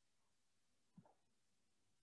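Near silence, with one very faint, brief sound about a second in.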